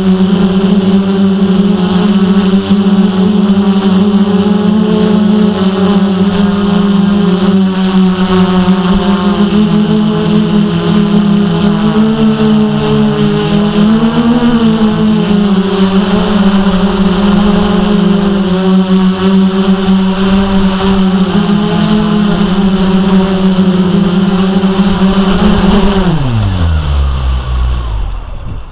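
X650 V8 octocopter's electric motors and propellers, heard from the camera mounted on the craft: a loud, steady buzzing hum that wavers in pitch about halfway through. Near the end, after it touches down, the hum falls away in a quick downward glide as the motors spool down.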